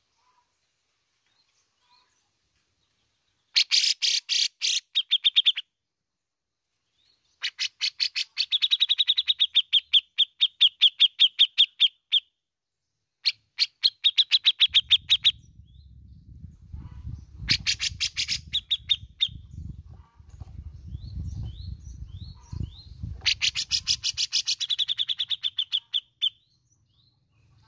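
Grey-cheeked bulbul (cucak jenggot) calling in five bursts of fast, rasping chatter, each run of notes ending in clearer repeated notes. A low rumble runs under the calls in the middle stretch.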